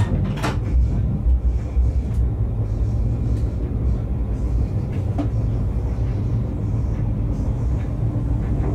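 Electric train running along the track, a steady low rumble with a couple of sharp clicks, about half a second in and again about five seconds in.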